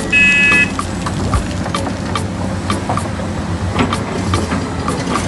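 Engine-like hum running steadily for a toy excavator digging sand, with light clicks about twice a second. A short high beep sounds just after the start and is the loudest thing.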